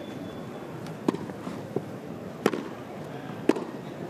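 Tennis ball struck back and forth with rackets in a rally on a grass court: three sharp hits about a second apart, with a fainter tap between the first two.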